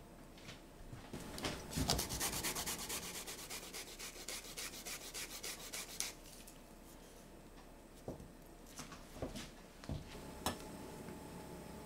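Fresh ginger being grated on a fine rasp grater: quick, rhythmic scraping strokes for about five seconds. Then a few light, separate knocks near the end.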